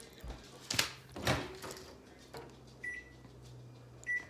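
Microwave oven being set: two knocks about a second in as the door is handled and shut, then two short keypad beeps, one near three seconds and one just after four, over a low hum.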